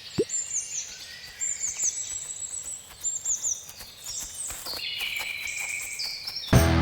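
Birds chirping and trilling over a faint steady outdoor background, with a short rising tone about a quarter second in. Loud rock music cuts in near the end.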